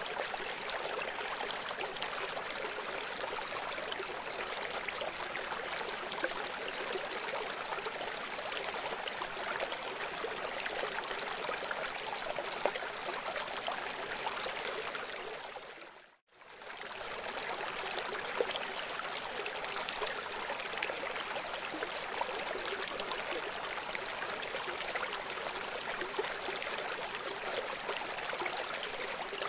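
Steady rushing of running water, like a stream, with no other sound. About halfway through it fades out to near silence for a moment and fades straight back in.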